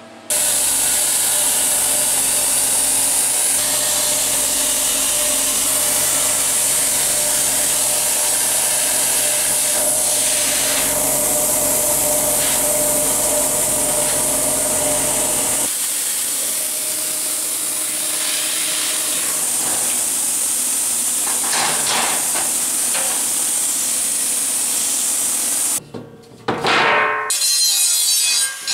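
R-Tech CNC plasma cutter cutting 3 mm steel plate: a loud, steady hiss from the plasma arc and its air, with a steady hum underneath that drops away about halfway through. Near the end it stops, and an angle grinder starts grinding the edge of the cut steel disc.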